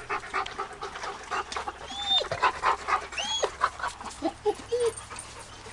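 Dog panting rapidly, with a couple of short high-pitched whines about two and three seconds in.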